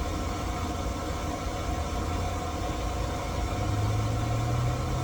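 Steady mechanical hum of a running motor, with a stronger low tone coming in about three and a half seconds in.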